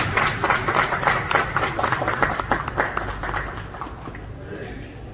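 A small group clapping by hand, dense at first, then thinning out and fading after about three seconds.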